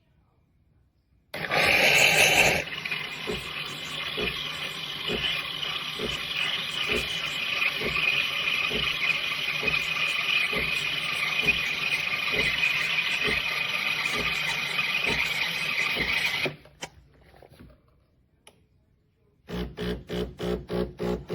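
Espresso machine running: a sudden loud start, then a steady hiss with a regular pulsing underneath, cutting off sharply after about fifteen seconds.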